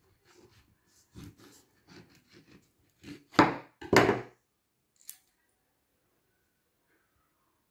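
Knife cutting around a peach on a wooden chopping board: a string of soft knocks and scrapes, then two louder knocks a little past the middle as the knife is laid down on the board.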